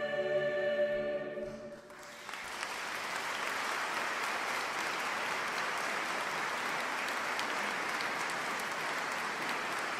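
A choir's final held chord fades out about two seconds in. The audience then applauds steadily.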